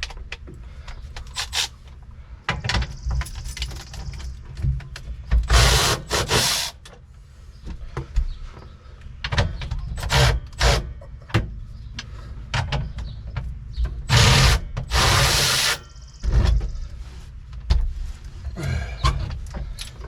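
Metal clanks and knocks of a steering column being worked loose in a truck cab, with two bursts of a power tool: a short one about six seconds in and a longer one near fifteen seconds.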